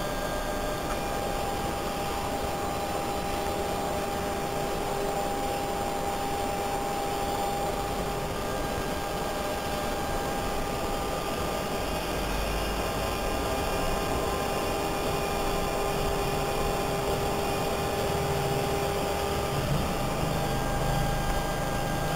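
The DC motor of an electronic throttle body, driven by a PWM signal, giving a steady electrical whine of a few thin tones over a constant hiss. A lower hum joins in near the end.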